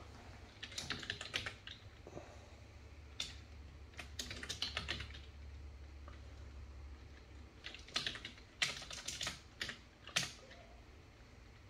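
Computer keyboard typing in short bursts of keystrokes with pauses between them.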